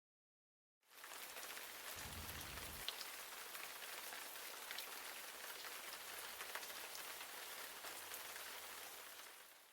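Steady patter of rain on a surface, many small drops ticking through an even hiss. It fades in about a second in and fades out at the end, with a brief low rumble between two and three seconds in.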